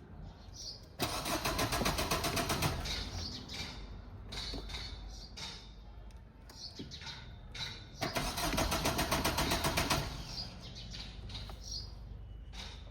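A Mahindra Thar's engine being cranked on the starter in two spells of rapid, rhythmic cranking, about a second in and again about eight seconds in, each lasting two to three seconds: a hard start.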